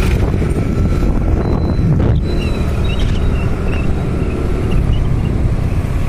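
Wind rumbling steadily on the microphone of a moving motorbike, with the bike's engine and road noise running underneath.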